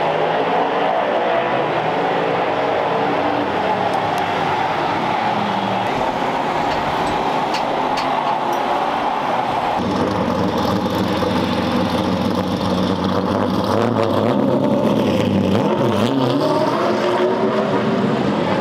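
Chevrolet late model stock car's V8 engine running at a rumbling idle. About halfway through the sound deepens and grows louder as the car is driven off, with short rises and falls in engine pitch near the end.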